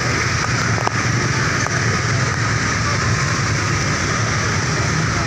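Steady, loud bus engine and road noise, with no horn sounding.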